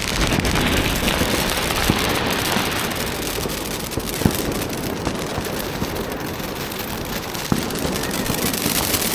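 Dense, continuous crackling of firecrackers and fireworks going off, with a few sharper pops standing out.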